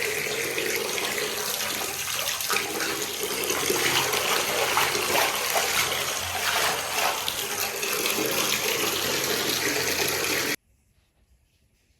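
Water running steadily from a tap into a bath or basin, stopping abruptly about ten and a half seconds in.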